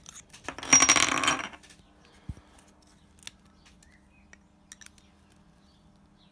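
Loaded .308 cartridges clinking and rattling against each other for about a second, with a faint metallic ring, followed by a few light clicks.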